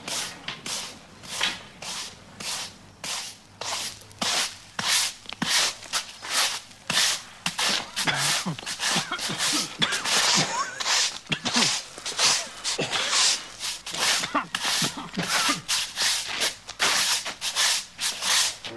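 Broom sweeping a dusty yard in quick, rhythmic strokes, two or three short swishes a second.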